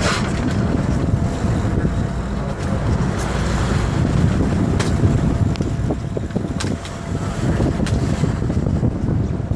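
Wind buffeting the microphone over a steady low rumble of the boat at sea, with a few short clicks or knocks along the way.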